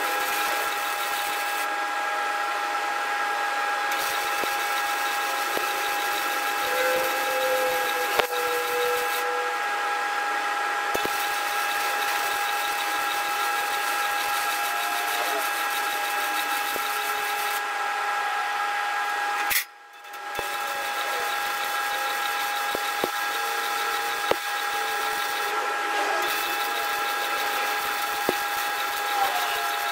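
MIG welding arc running steadily with a hissing crackle as .035 wire is fed into the joint, filling the gap around a new bushing on a steel dozer push arm. The arc stops for under a second about twenty seconds in, then strikes again.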